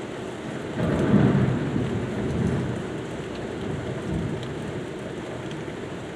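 Steady rain, with a low rumble of thunder that swells about a second in and fades away over the next two seconds.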